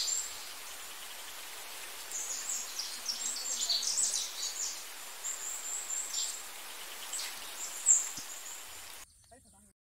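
Outdoor woodland ambience: birds chirping and calling in short high notes, with one longer held note, over a steady hiss. The sound cuts off suddenly near the end.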